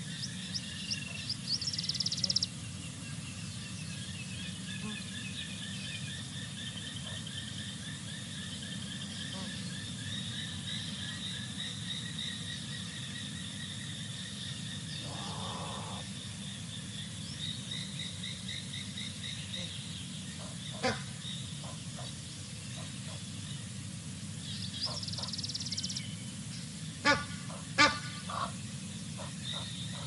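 A steady chorus of frogs trilling in fast repeated pulses, with short bursts of high bird chirps near the start and near the end. A few sharp clicks in the second half are the loudest sounds.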